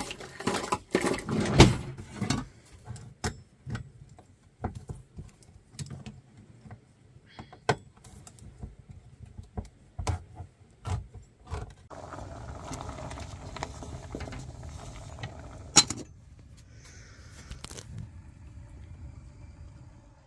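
Hand-held crank can opener working around a can's rim: a string of irregular metallic clicks and scrapes. About two-thirds of the way in, a steady hiss runs for a few seconds, broken by one sharp click.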